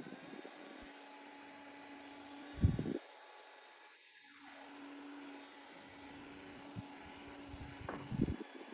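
Small handheld fan motor running with a steady whir. It stops a little under three seconds in and starts again about a second and a half later. Two dull handling thumps come, one just before it stops and one near the end.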